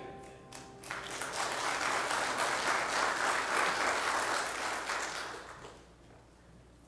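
A grand piano's last chord dies away, then a congregation applauds for about five seconds, the clapping fading out near the end.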